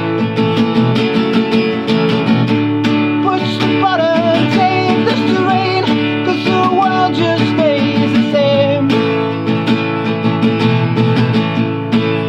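Acoustic guitar strummed in a steady rhythm as an instrumental break in a song. A wavering melody line rides over it from about three seconds in until about nine seconds in.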